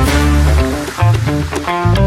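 Background music with guitar and a strong bass line.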